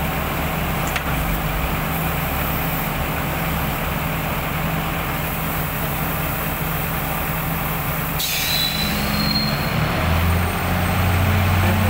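A borewell drilling rig's engine runs steadily throughout, with a brief high metallic squeal about eight seconds in. From about ten seconds in, the engine note rises and grows louder.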